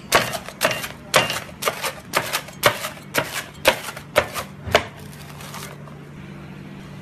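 A large knife chopping through a meat-topped Turkish pide onto a wooden cutting board: about ten sharp chops, roughly two a second, stopping about five seconds in.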